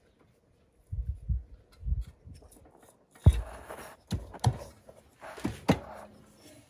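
A new motorcycle cylinder being worked down over the piston and its rings, rocked side to side by hand: a few low thuds, then several sharper metal knocks and clunks with brief rubbing.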